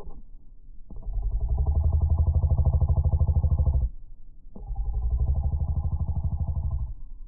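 Background music: low, buzzing bass-heavy tones with a fast even pulse, in phrases of about three seconds that start sharply, with short breaks between them about a second in and again around four and seven seconds in.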